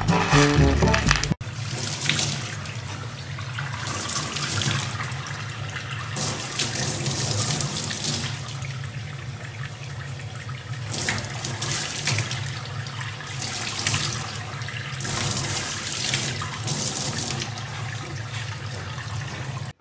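Brief music that cuts off about a second and a half in. Then a tap runs steadily into a stainless-steel sink, splashing as a baby chimpanzee's hand and body move in the stream.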